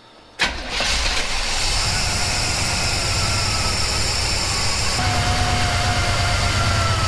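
Small-block Chevy V8 with FiTech throttle-body fuel injection starting: it catches suddenly about half a second in and settles into a steady idle. The idle goes up and down a little as the EFI does its learn.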